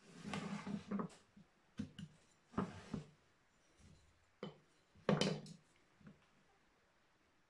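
Hand wood carving at a table: a series of short wooden knocks and scrapes as chisels and gouges are handled and set down on a carved relief panel, the panel is shifted on the tabletop, and a chisel cuts into the wood. There are about seven separate strikes, and the loudest comes about five seconds in.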